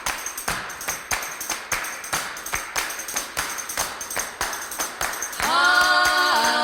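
Music: a fast, even percussion beat of about four strikes a second, like a tambourine or hand drum, as a song's intro. About five and a half seconds in, voices come in holding a long sustained chord.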